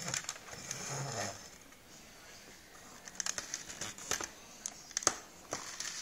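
Handling noise from hands working at a helmet and its plastic and cable fittings: a rustle in the first second, then scattered light clicks and plastic crinkling from about three seconds in.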